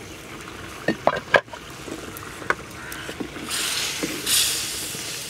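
A clay cooking-pot lid is lifted and set down, giving a few sharp knocks about a second in. Then a spoon stirs and scrapes the curry in the clay pot with a hissing, scraping sound, stronger near the end.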